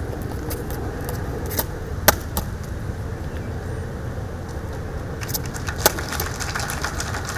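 Steady low background rumble of open-air noise, with scattered sharp clicks and taps. The loudest click comes about two seconds in and another about six seconds in.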